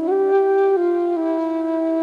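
Slow flute melody: a higher note near the start, then stepping down about two-thirds of a second in and again a little later, settling into a long held note.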